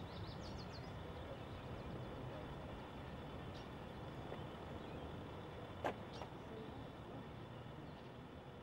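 Quiet outdoor ambience: a steady low rumble and hiss, a few short high bird chirps at the start, and one sharp click about six seconds in.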